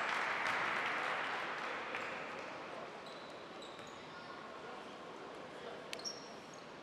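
Basketball bouncing on a hardwood court with a few sneaker squeaks, echoing in a large arena. Crowd noise swells at the start and dies away over the first couple of seconds, and a sharp knock of the ball comes near the end.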